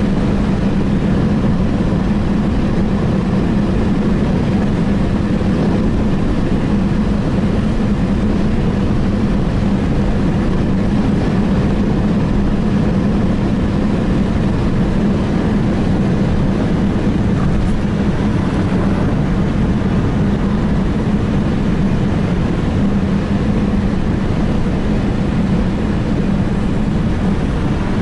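Steady engine and tyre noise of a car driving on an asphalt road, heard from inside the cabin, with a constant low hum.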